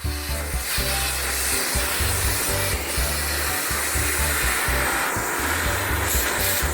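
Philips PowerPro Compact 1900 W vacuum cleaner coming on and running with a steady, loud rushing hiss of air, over background music with a bass line.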